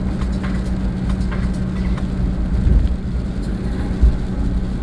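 Steady road and engine noise of a car driving at highway speed, heard inside the cabin: a low rumble with a constant hum, and a short thump about four seconds in.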